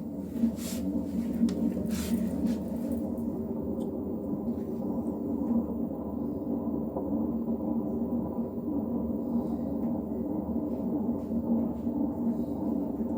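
LG direct-drive washing machine in its spin cycle, running with a loud, steady drone made of several tones and a couple of knocks in the first two seconds. This is the abnormal loud, annoying noise it makes in spin.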